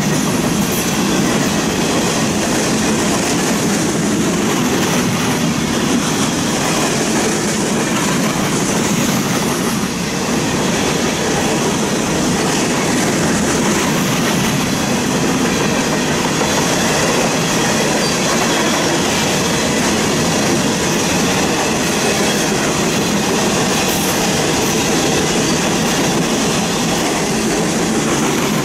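Empty coal cars of a freight train rolling past: a steady, loud rumble and rattle of steel wheels on the rails.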